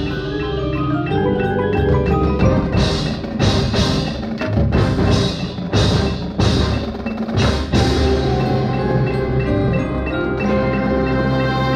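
Marching band playing, with mallet percussion carrying a rising line early on. In the middle comes a string of sharp percussion strikes, and near the end the band settles into held chords.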